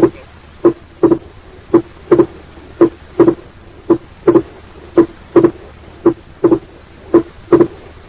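Recorded heartbeat over the pulmonary area in atrial septal defect, about one beat a second. Each first heart sound is single and each second heart sound is split into two close thuds: the wide, fixed splitting of S2 caused by a delayed P2, which does not vary with breathing.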